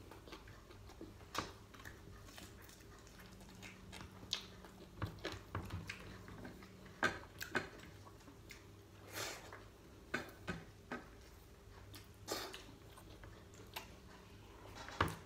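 Close-up eating sounds of a man eating fried chicken with his hands: chewing, lip-smacking and short wet clicks of mouth and fingers, scattered irregularly.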